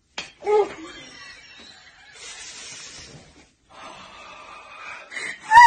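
People's voices in a small room: a short voiced exclamation about half a second in, then hushed, breathy hissing and murmuring, and a loud sharp cry near the end.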